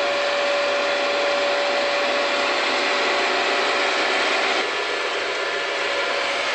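Harvesting machinery running steadily: a constant whirring, rushing noise with a steady whine over it, dropping a little in level about four and a half seconds in.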